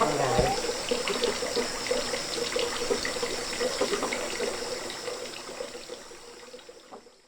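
Running water, a steady splashing rush, fading out to silence near the end.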